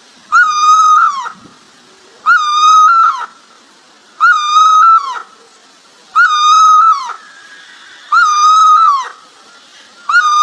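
A bird calling: one long, even-pitched call with a slight drop at the end, repeated about every two seconds, five times, with a sixth starting near the end.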